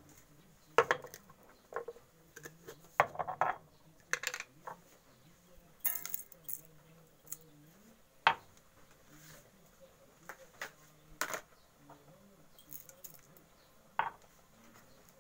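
Irregular clinks and knocks of metal kitchenware: pots, lids and utensils being handled, a dozen or so separate short strikes.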